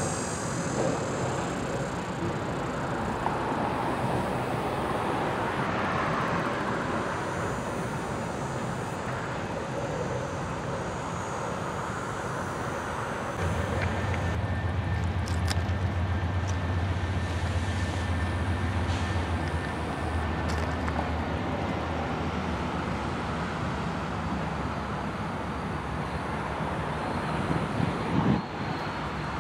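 Steady street traffic noise, with a deeper engine hum from a passing or idling vehicle for about six seconds midway.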